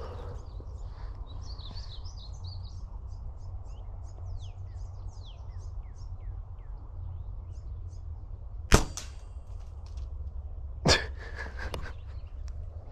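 A compound bow is fired about nine seconds in with a single sharp snap, and a second sharp crack follows about two seconds later. The arrow clipped a tree limb in flight. Small birds chirp during the first half.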